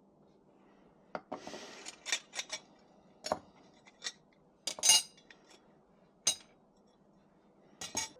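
A string of sharp metallic clinks and clanks, about ten of them at uneven intervals, like metal parts or tools being handled and set down. The loudest comes near the middle and rings briefly.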